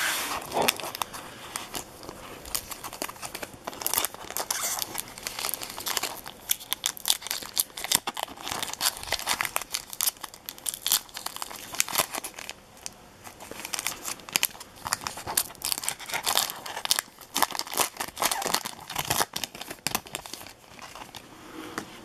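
Plastic wrapper of a 2010 Topps Series 2 baseball card pack crinkling and tearing open in the hands, a dense, irregular run of crackles.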